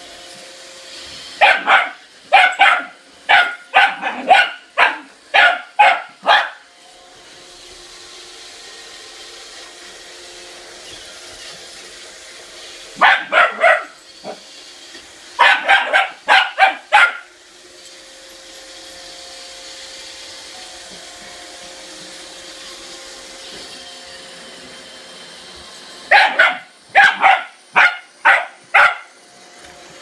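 Small dog barking at a running Roomba robot vacuum, in three bouts of quick, repeated barks. The robot vacuum's steady hum runs underneath between the bouts.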